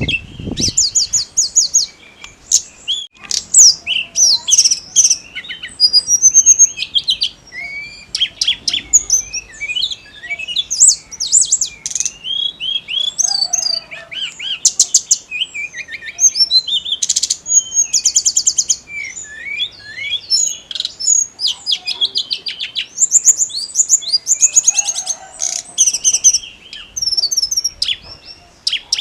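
Tledekan gunung songbird singing non-stop: a fast, varied, high-pitched song of rapid trills, quick repeated notes and short chirps with hardly a pause.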